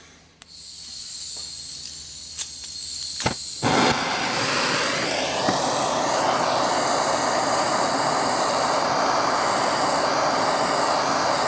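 Hand-held gas torch: gas hissing from the nozzle with a couple of clicks, then lighting about three and a half seconds in and running as a loud, steady flame while it heats a brass cylinder block for soft soldering.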